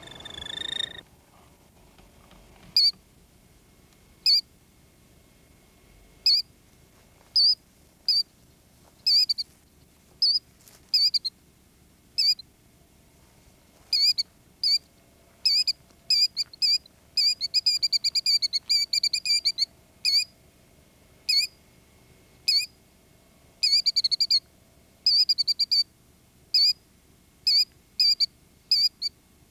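Killdeer calling: short, high, sharp notes, at first one every second or so, then in quick runs of many notes about two-thirds of the way in and again a little later.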